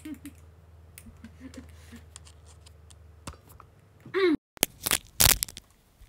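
Microphone handling noise as a wired earphone cable is handled: about a second of loud rustling and scraping, right after the audio cuts out briefly. Before it, a few soft vocal sounds over a low steady hum that stops at the cut-out.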